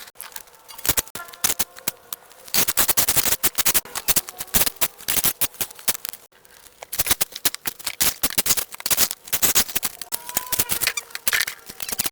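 Rapid, irregular scraping and clicking, busier after the first couple of seconds, with a brief drop just past six seconds.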